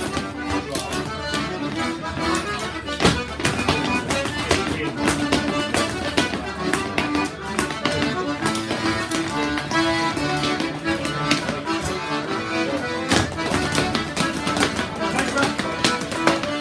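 Accordion playing a lively folk dance tune for rapper sword dancing, with sharp taps and clacks from the dancers' stepping and their steel swords throughout.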